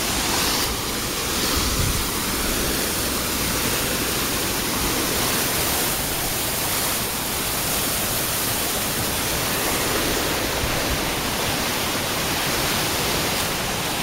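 Small mountain waterfall spilling over boulders close by: a steady, full rush of falling water.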